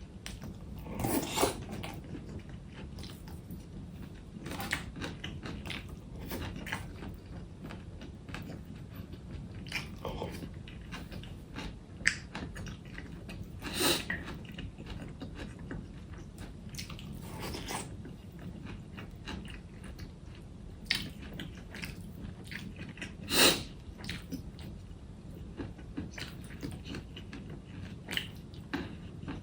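Close-up eating sounds: a person chewing and biting food, with a few louder crunches scattered through.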